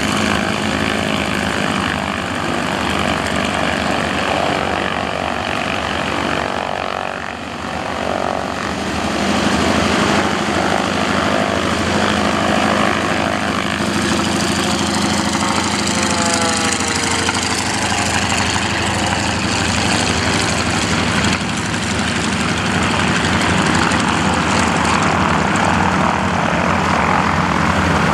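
Pitts S-1S aerobatic biplane's piston engine and propeller running hard through aerobatic manoeuvres. The sound dips briefly about seven seconds in, and the engine note sweeps in pitch partway through.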